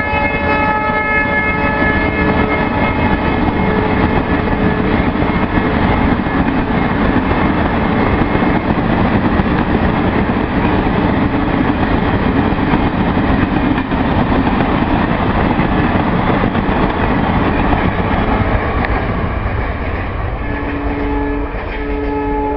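WDP4 diesel locomotive's horn ending a long blast in the first two seconds, then the locomotive and its train of passenger coaches passing with a steady loud rumble and wheel clickety-clack. Near the end a horn gives two short toots.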